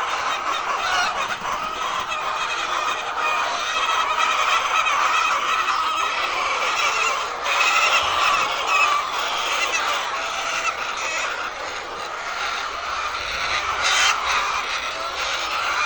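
A flock of laying hens clucking and calling all at once, a dense, unbroken chorus of many birds.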